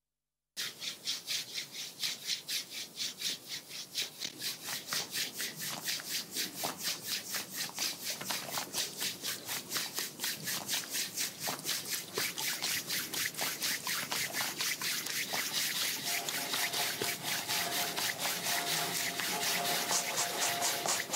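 Rubbing and scrubbing played as percussion: hands rubbing together and a brush scrubbing, in a steady rhythm of scratchy strokes that starts about half a second in and grows denser as more layers are added. A faint steady tone joins about sixteen seconds in.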